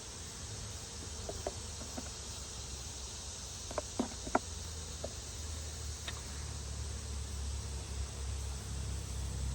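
Honeybees buzzing around an open hive, a steady insect drone that grows a little louder toward the end. A few light knocks and clicks of hive boxes and frames being handled, clustered around four seconds in.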